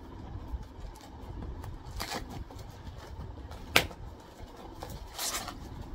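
Cardboard parcel being opened by hand: packaging rustling and tearing in two short bursts, with small scattered clicks and one sharp snap a little under four seconds in.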